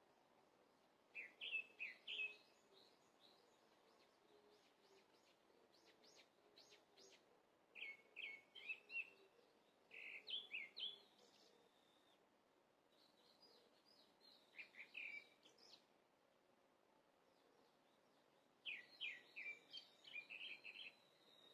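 Birds singing in short bursts of quick chirps, a phrase every few seconds, over a faint steady background.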